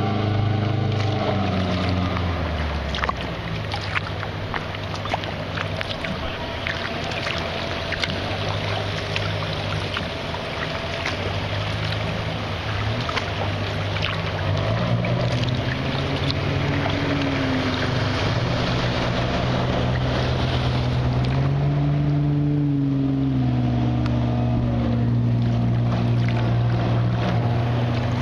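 Motorboat engine running steadily, its pitch rising and falling a few times in the second half, over the splashing and dripping of kayak paddles in the water.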